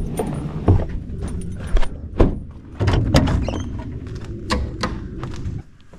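A Ford pickup's door opening and shutting with thunks and keys jangling, followed by a string of sharp knocks and clicks over a low rumble that drops away near the end.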